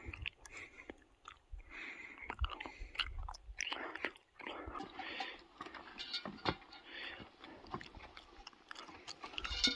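Footsteps scuffing and crunching over rocks as someone scrambles across a boulder slope, with rustling of clothing and pack and the odd short knock of stone or gear against rock.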